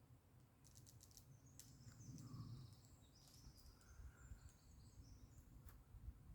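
Faint bird chirps and warbles, high-pitched, from about a second and a half in to about five seconds, over a low rumble, with a few sharp clicks.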